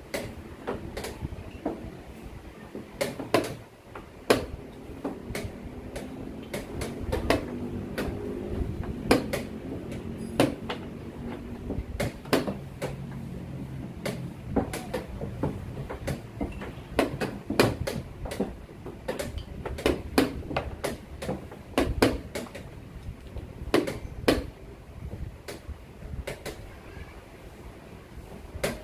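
Wooden chess pieces set down on the board and a digital chess clock's buttons pressed during a fast blitz game: sharp clicks and knocks at irregular intervals over low background noise.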